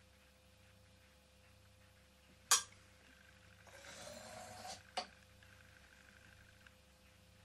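Small objects handled on a workbench: a sharp clink about two and a half seconds in, a hissing rustle of about a second, then a second clink.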